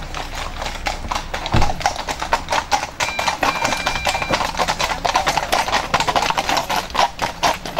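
Hooves of a four-in-hand team of grey horses clip-clopping on a hard road as they pull a carriage, a rapid, uneven clatter of many hoof strikes, with a brief thin high tone a little past the middle.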